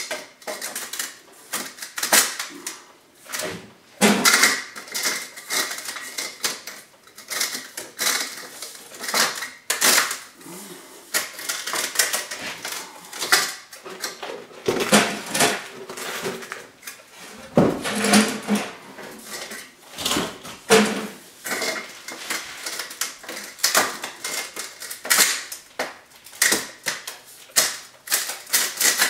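Sheet-metal stove-pipe fittings being handled and worked into place by hand, making irregular metallic clicks, taps and rattles, with a faint ringing at times.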